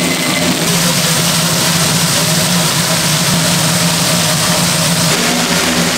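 Steady machine hum with a continuous hiss over it, unchanging throughout.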